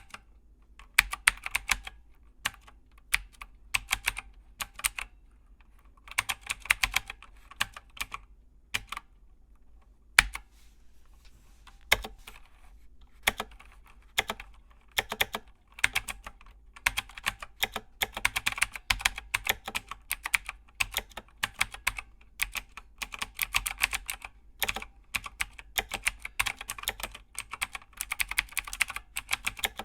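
Rapid typing on keys: bursts of fast clicks with short pauses between them, a few single clicks after a break about ten seconds in, then longer, denser runs of typing.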